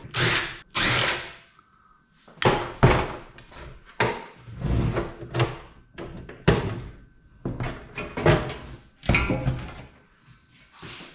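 Cordless drill-driver running in repeated short bursts as it backs screws out of a computer case.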